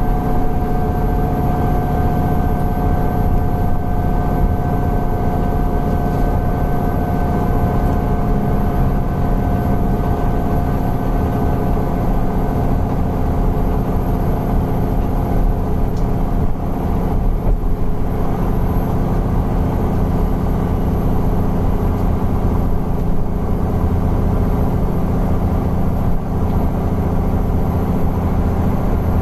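Alexander Dennis Enviro 400 double-decker bus running steadily, its engine and drivetrain giving a dense low drone. A high whine slowly falls in pitch and fades out about halfway through.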